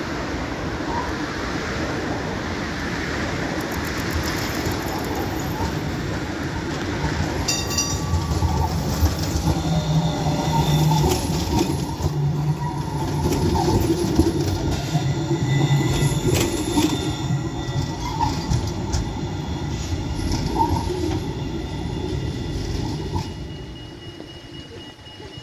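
An Alstom Citadis low-floor tram approaches and passes close by on grass track, with a low motor hum, wheel-on-rail rumble and thin high squealing tones from the wheels. A little before the end the sound drops to a quieter street background.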